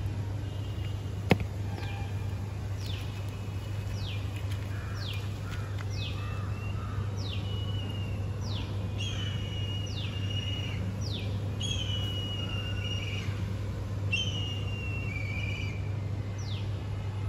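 A bird calling over and over, each call a quick downward sweep that settles into a short held whistle, about one a second, over a steady low hum. A single sharp click comes about a second in.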